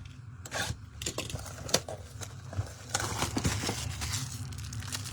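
Trading cards and a foil pack wrapper being handled: crinkling and rustling with small clicks and snaps, busiest in the second half.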